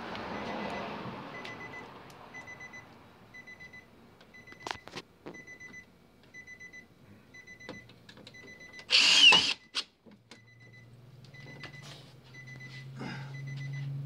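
A 2017 Nissan Versa's warning chime beeping over and over at one high pitch in short groups. About nine seconds in comes a brief, loud whir from a cordless drill-driver, and a low steady hum follows near the end.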